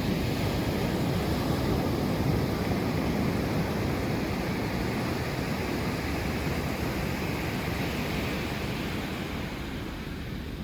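Ocean waves breaking and washing up the beach: one long surge of surf that slowly eases off near the end.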